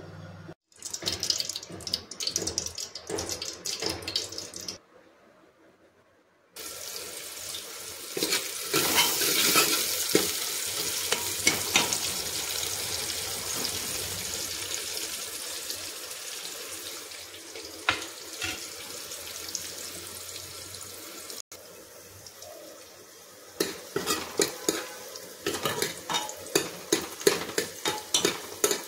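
Sliced onions sizzling in hot oil in an aluminium pot, a steady sizzle that swells and then slowly tapers off. Near the end a steel spoon clicks and scrapes rapidly against the pot as the onions are stirred.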